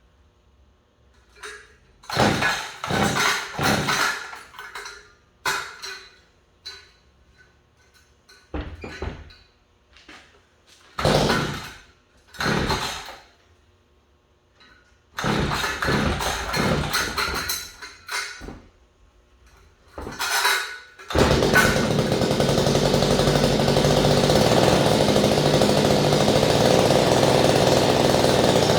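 Small gasoline engine, run without its air filter, being started over and over. It gives several short sputtering bursts that die out, then catches a little over twenty seconds in and keeps running steadily.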